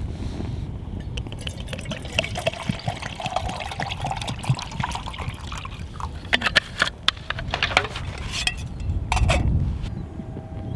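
Water poured from a bottle into a metal mug on a small pocket stove, the pour rising in pitch as the mug fills. Then a run of sharp clicks and knocks from handling the bottle and gear.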